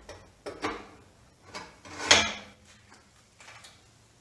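Porter-Cable PCB660DP drill press table being fitted back onto its swivel support arm: a few knocks and scrapes of metal on metal, the loudest a sharp clank about two seconds in.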